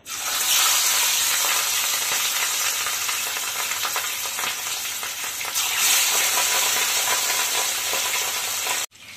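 Katla fish pieces, rubbed with salt and turmeric, sizzling loudly as they fry in hot mustard oil in a kadai. The sizzle jumps up at the start and again about five and a half seconds in as each piece goes into the oil, then cuts off suddenly near the end.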